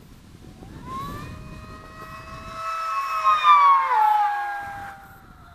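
Great Planes Rifle electric hotliner making a fast pass: the whine of its Turnigy 2845 inrunner motor and 4.5x4.1 APC prop swells in, is loudest about three and a half seconds in, then drops in pitch as the plane goes by and fades. Wind on the microphone rumbles low in the first half.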